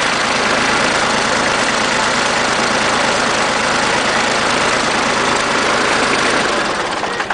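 Airsoft electric machine gun firing one long full-auto burst: a loud, fast, even mechanical chatter from its motor-driven gearbox, which stops near the end.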